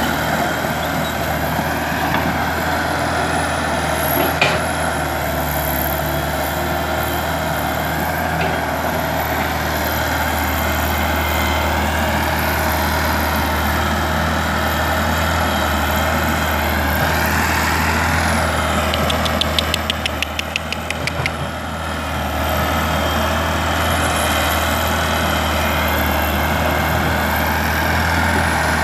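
Komatsu PC120 crawler excavator's diesel engine running steadily under work as the arm digs, its note rising and falling. About two-thirds of the way through comes a short run of rapid clicks.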